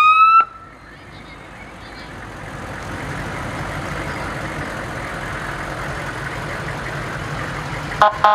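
An emergency siren gives a rising whoop that cuts off about half a second in. A fire department SUV's engine and tyres then run steadily as it rolls slowly past, growing louder as it nears. Near the end comes a short double blast of a vehicle horn.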